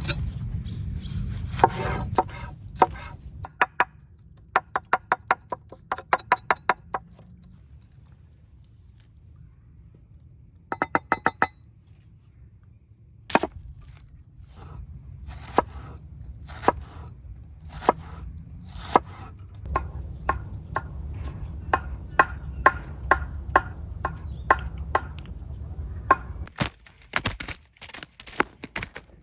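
Knife chopping food on a wooden cutting board: runs of quick cuts, then steadier strikes about two a second.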